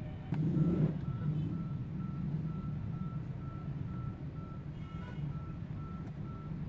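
A vehicle's reversing alarm beeping steadily, about two single-pitched beeps a second, over a low steady rumble. There is a brief handling noise about half a second in.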